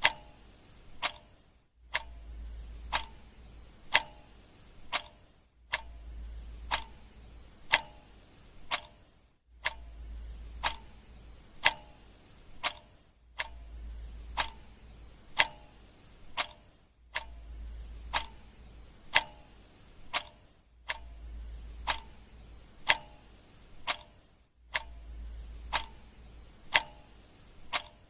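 Clock ticking steadily, about one tick a second, over a faint low hum that drops out briefly every few seconds.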